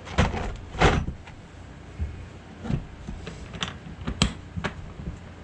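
Removable plastic trays of a Milwaukee bit-set case being handled and clicked in and out: a series of sharp clicks and knocks, the two loudest within the first second, then lighter ones spread through the rest.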